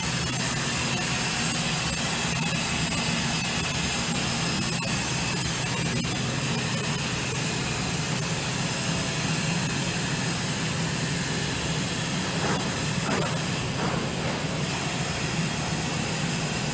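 Steady machinery drone with a hiss over it. A few faint, short rising squeaks come about three-quarters of the way through.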